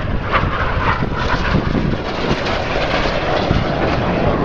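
Jet engines of Red Arrows BAE Hawk T1s flying past, a loud steady rushing roar that swells briefly about half a second in and again near the end.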